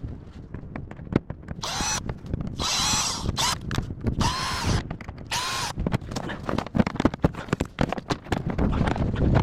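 Cordless power drill run in four short trigger pulls, each a brief whine that rises and falls in pitch, amid knocking and clatter of metal parts.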